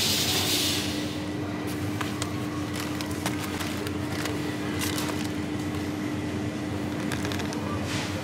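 Steady hum of a supermarket's refrigerated freezer case, one constant low tone over a noisy bed. Scattered clicks from packages and the freezer door being handled, and a short rustle in the first second.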